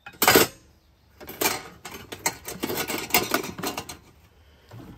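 Metal camp utensils clattering against each other and the nested stainless steel pots as they are pushed down the side of the packed chuck box: one loud clatter just after the start, then a run of lighter clinks.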